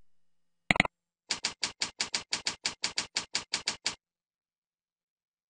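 One click, then a quick run of about sixteen evenly spaced computer keyboard keystrokes, roughly six a second, as a short phrase is typed. The typing stops about four seconds in.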